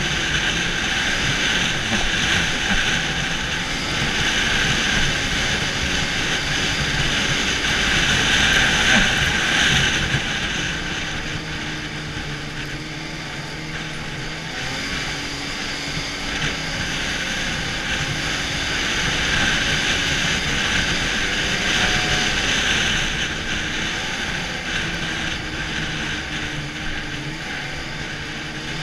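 Arctic Cat snowmobile engine and track running at trail speed, heard from the rider's seat. The engine note rises and falls with the throttle: louder over the first ten seconds, easing off in the middle, then picking up again.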